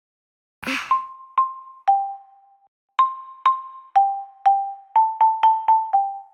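Background music: a simple tune on a xylophone-like mallet instrument, one struck note at a time. The notes step downward in pitch and come quicker in the second half, after a short swish about two-thirds of a second in.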